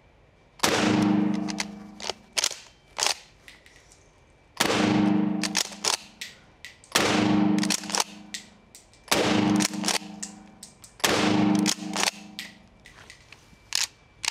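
Mossberg 590S 12-gauge pump-action shotgun firing 1-ounce rifle slugs from short shotshells: five loud shots, the first about half a second in, the rest about two seconds apart, each ringing on in the indoor range. Between shots, the pump action is racked with sharp metallic clacks.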